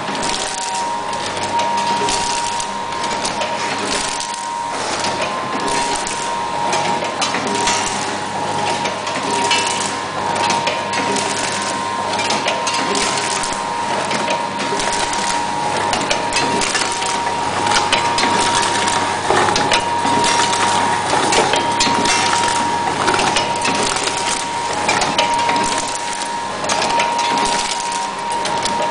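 Automatic multi-grain cereal packaging machine running: a dense, continuous clatter of rapid clicks and knocks from its mechanisms, over a steady high-pitched hum.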